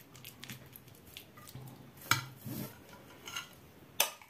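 Metal cutlery stirring grated cheese and mayonnaise in a ceramic plate: soft scraping with a few sharp clinks of metal on the plate, one about two seconds in and the loudest near the end.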